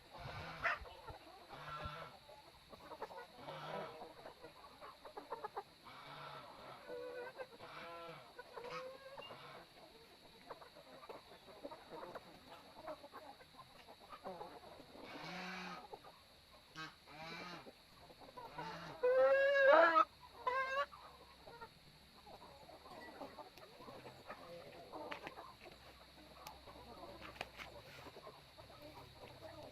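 Chickens clucking on and off, with one louder, drawn-out call about two-thirds of the way through.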